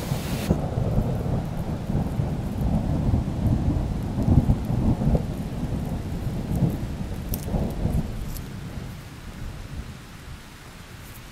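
Thunder rumbling in long, uneven rolls that die away over the last few seconds.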